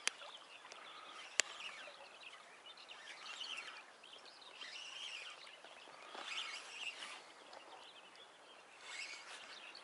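Birds singing in a dawn chorus, a spread of short chirps and whistles, with one sharp click about a second and a half in.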